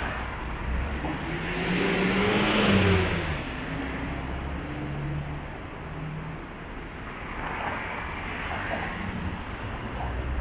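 A motor vehicle driving past, its engine note swelling to a peak about three seconds in and then fading, with a weaker swell of traffic a few seconds later over a steady street hum.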